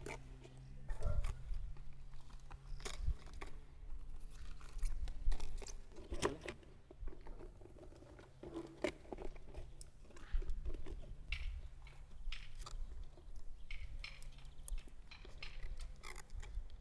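Crisp raw cabbage leaves crunching and crinkling as they are pulled apart and pressed by hand into a cauldron, in irregular crackles.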